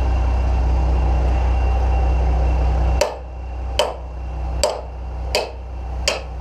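Massey Ferguson 6270 tractor engine running steadily while reversing. About three seconds in, the low engine note drops and a run of five sharp clicks follows, about one every three-quarters of a second.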